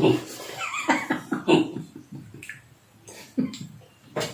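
Short bursts of a person's voice, then a couple of sharp coughs near the end.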